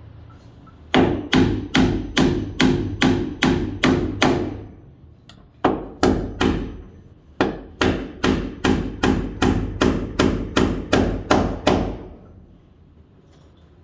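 Hammer driving a nail into wood: three runs of steady blows, about two and a half a second. There are about nine blows, then a short run of three, then about a dozen more. Each blow rings briefly.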